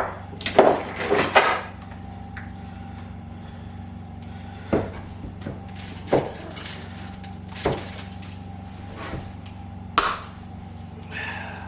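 Hand tools working heavy battery cable: a quick cluster of clicks and knocks at the start, then single sharp knocks every second or two over a steady low hum.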